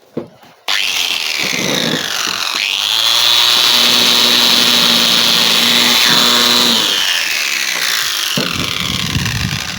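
Handheld electric power tool, used to clean up a metal part, switched on: its whine rises over about two seconds, runs steady at speed, then winds down and stops near the end. Afterwards the tool is judged too fast for the job.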